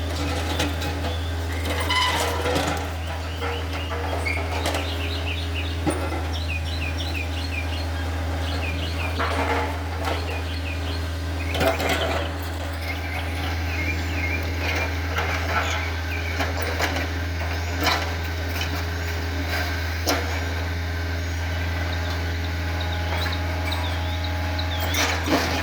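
Takeuchi TB153 compact excavator's diesel engine running steadily, with irregular clanks and knocks of the bucket working on broken concrete.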